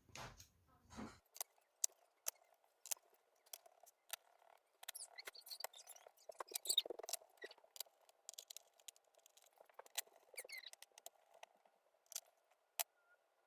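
Faint, irregular clicks and small squeaks of a screwdriver driving screws back into a laptop's plastic base panel.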